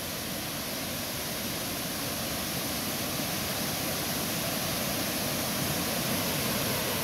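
Waterfall pouring down a rock face: a steady rush of falling water that grows gradually louder.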